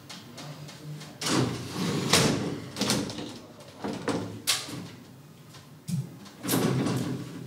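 Sliding glass shower-cabin door being pushed along its track, with a run of scrapes and knocks from the panels: loudest about two seconds in and again near the end.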